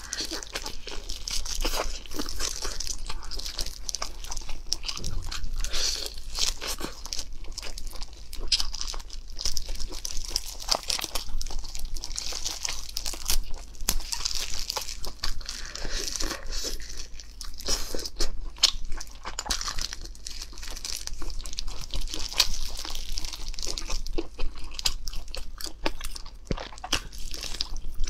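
Close-miked chewing and biting of roast chicken, a continuous stream of small wet clicks and crackles, with the meat being torn apart by gloved hands.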